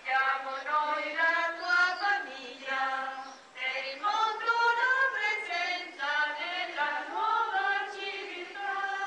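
A group of voices singing a hymn together, with no instruments heard.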